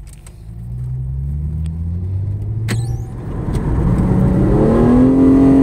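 Hyundai Genesis Coupe's engine heard from inside the cabin, pulling away at low revs and then accelerating, its note climbing steadily in pitch through the second half. A single sharp click about two and a half seconds in.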